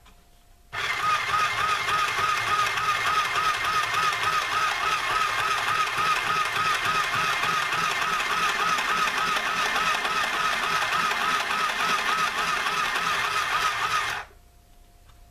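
Battery-powered mini portable sewing machine running steadily, its small motor whirring and the needle stitching through paper at an even, rapid rhythm. It starts a little under a second in and stops about a second before the end.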